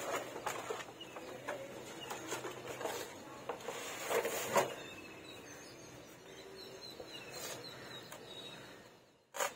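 Scattered knocks and a short scrape as a large painted wooden board is handled and shifted on a concrete floor, with a few faint bird chirps; a sharp click comes near the end.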